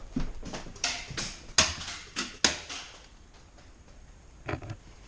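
Irregular knocks and rustles, about ten in the first three seconds, then a lull with two fainter knocks near the end: the noise of a player moving about with gear.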